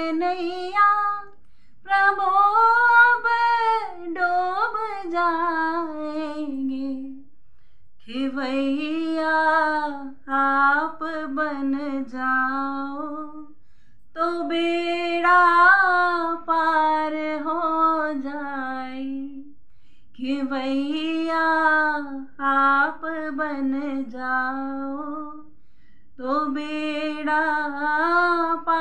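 A woman singing a Hindi Krishna bhajan solo, one voice with no instrument heard, in phrases of about five seconds with brief pauses for breath between.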